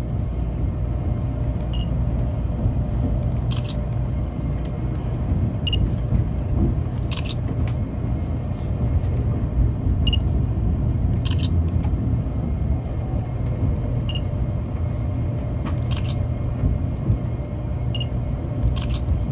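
Steady low running rumble inside a Tokaido Shinkansen car rolling along the depot tracks. A short, sharp high click comes every four seconds or so.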